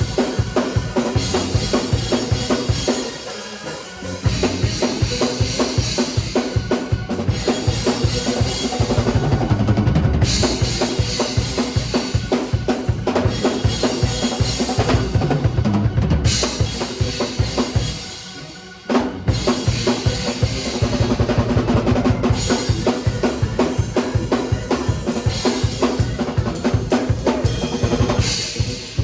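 Drum kit played in a fast, busy groove with bass drum, snare and rimshots, breaking off briefly about three seconds in and again around eighteen seconds, then stopping near the end.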